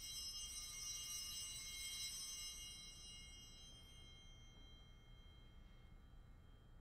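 Altar bell rung at the elevation of the consecrated host: a cluster of high ringing tones that starts suddenly and fades away over about five seconds.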